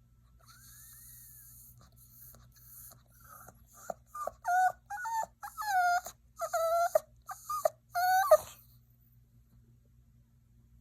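Yorkshire terrier puppy whining: a faint high whine at first, then a run of short, wavering whines that grow louder and stop about eight and a half seconds in.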